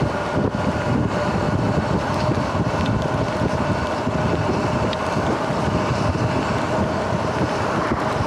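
Wind buffeting the microphone on a moving electric dirt bike, over the electric motor's steady whine and the tyres running on wet asphalt.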